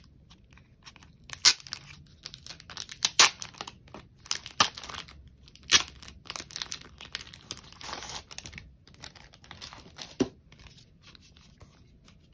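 Merch packaging being torn open and crinkled by hand: a run of irregular sharp rips and crackles that dies down after about ten seconds.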